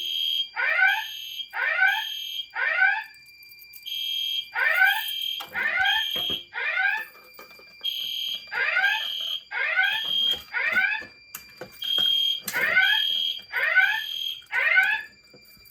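EST Genesis speaker strobes on a Potter PFC-4064 voice evacuation fire alarm panel sounding the temporal-three evacuation tone, set off by a manual pull station. Each round is three high beeps, each with a falling sweep, followed by a short pause. The round repeats about every four seconds, four times, ahead of the spoken evacuation message.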